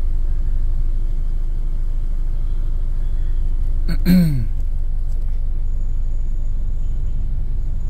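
Toyota Camry's 2AZ-FE 2.4-litre four-cylinder engine idling rough with the AC on: a steady low rumble, with the engine shaking from misfires on cylinders 1 and 4. A brief voice sound about four seconds in.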